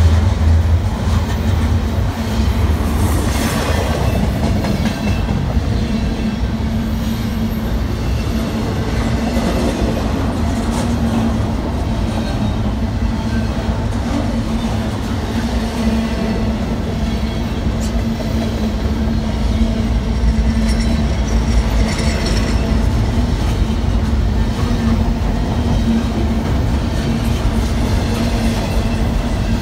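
A double-stack intermodal freight train's loaded container well cars rolling past: a steady rumble of steel wheels on the rails, with clickety-clack from the wheels.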